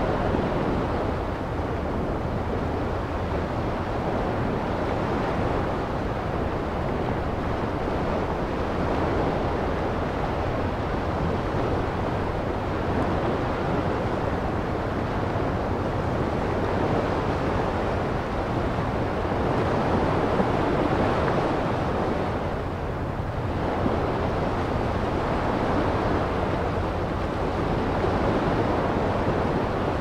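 Ocean surf washing onto a sandy beach: a continuous rush of waves that swells and eases, with a brief lull about three-quarters of the way through.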